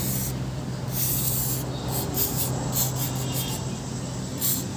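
Short, irregular hissing scrapes, several in quick succession around the middle, over a steady low hum.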